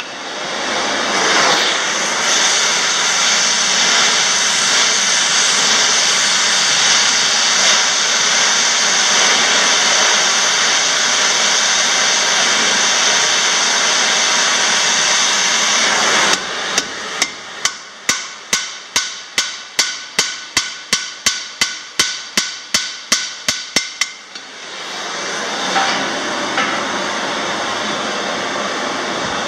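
Gas torch hissing steadily as it heats a rivet. Partway through, a hammer strikes the hot rivet about thirty times in quick succession, around four blows a second, closing the rivet on a traction-engine wheel strake. Then the torch hisses again.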